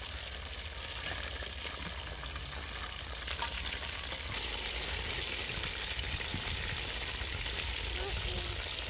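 Chicken leg pieces deep-frying in hot oil in an aluminium pot, a steady sizzle and crackle, during their second fry over a low flame. A low steady rumble runs underneath.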